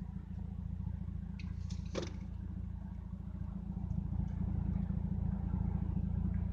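1998 Mitsubishi Eclipse driving on the highway: a steady low rumble of engine and road noise inside the cabin, growing somewhat louder about four seconds in. There is a brief sharp sound about two seconds in.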